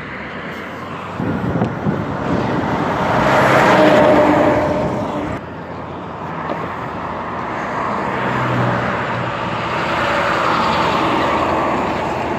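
Road traffic passing close by, engine and tyre noise swelling and fading: one pass loudest about four seconds in, then a second building toward the end as a box truck goes by.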